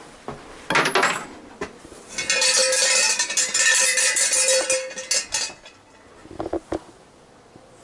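A Shinto shrine's suzu bell rattling and jingling for about three seconds as its rope of cloth streamers is shaken, with one steady ringing tone under the rattle. A brief clatter comes about a second in, and a few sharp claps-like cracks follow near the end.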